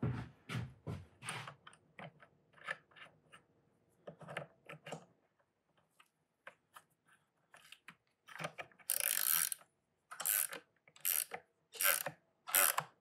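Hand-tool work on small metal hardware: irregular clicks and knocks of parts being handled and fitted. In the second half come about five rhythmic rasping strokes, each about half a second long, the first one longer.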